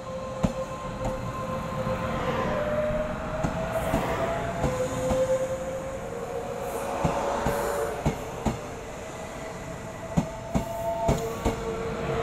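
Taiwan Railways EMU500 electric multiple unit running past along the platform: a motor whine that rises in pitch in steps as the train gathers speed, over a rumble from the cars. Sharp clicks, often in pairs, come as the wheels pass over rail joints.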